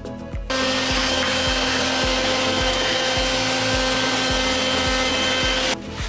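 Shop vacuum running with a steady motor whine, its hose sucking grime off the floor of a stove. It cuts in suddenly about half a second in and cuts off shortly before the end.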